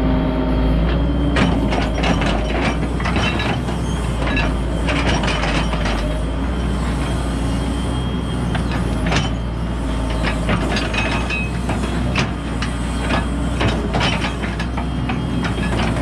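Excavator's diesel engine running steadily while the steel bucket digs through mud and stony soil, with frequent short knocks and scrapes of stones against the bucket.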